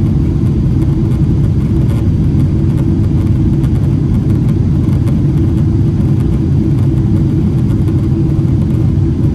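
Steady, loud, deep rumble of a Boeing 777-300ER's GE90-115B engines and rushing air, heard from inside the passenger cabin.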